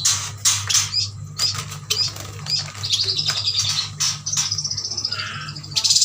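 Several chestnut-crested yuhinas chirping busily in short, high notes, with a quick trill about halfway through, amid fluttering of wings. A steady low hum runs underneath.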